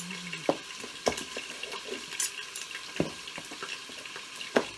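Beef searing in a Pampered Chef Quick Cooker with a steady sizzle. Knife blades knock on cutting boards about four times, loudest near the end.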